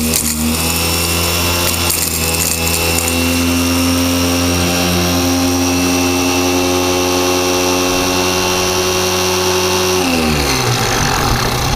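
Cordless drill driving a Cobra rock crusher, running steadily while it grinds a handful of rock, with a hiss of grinding over the motor's hum. About ten seconds in, the drill is let off and winds down.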